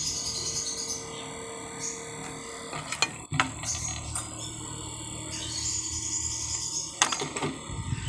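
Multilaser 15 cm mini desk fan running with a steady low hum, with a sharp knock about three seconds in and a few clicks near the end as the fan is handled and set down.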